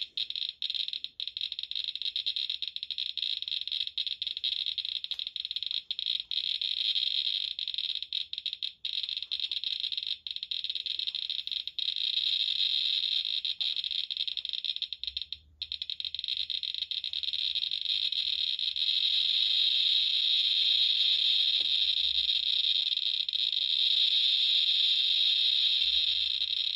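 Geiger counter clicking so fast that the clicks run together into a dense, steady crackle. This is a high count rate from radioactive uranium minerals under the probe. It cuts out for a moment about halfway through, then comes back louder for the last third.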